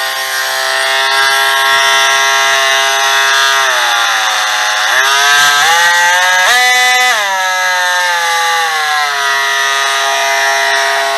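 Aldi Workzone cordless oscillating multi-tool running with a steady high whine. Its pitch drops about four seconds in, wavers, jumps up sharply around the middle, then settles back to where it started, as the speed control is worked.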